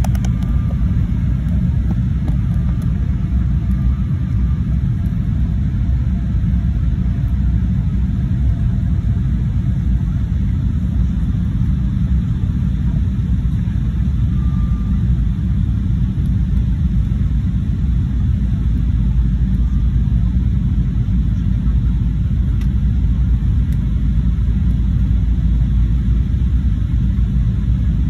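Steady low rumble of a jet airliner's cabin noise during the descent to landing, the engines and rushing air heard from inside the cabin.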